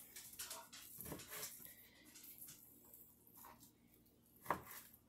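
Faint, scattered handling sounds of hands working raw beef chunks in a plastic bowl, with one short, louder sound about four and a half seconds in.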